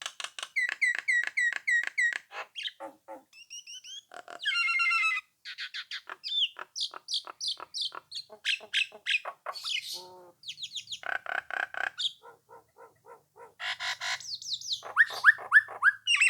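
Nias hill myna singing: a fast, varied string of repeated chattering notes, whistles and squawks, changing phrase every second or two, with a longer buzzy note about four seconds in and again near ten seconds.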